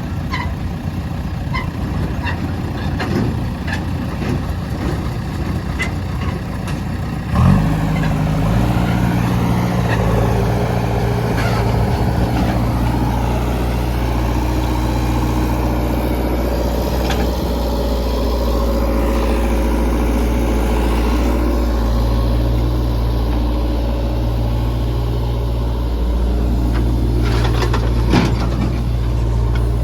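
Heavy diesel engine running; about seven seconds in it steps up louder with a strong, steady low hum as it takes on more revs. A few sharp knocks near the end.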